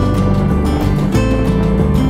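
Background music with a moving bass line and a steady beat.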